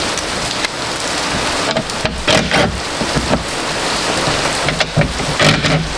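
Heavy rain coming down hard, a steady hiss, with a few brief knocks and clicks about two seconds in and again near the end.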